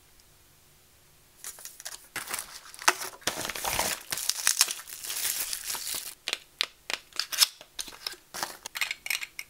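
Plastic bubble-wrap packaging crinkling as it is handled, starting about a second and a half in. A dense stretch of rustling gives way to separate sharp crackles.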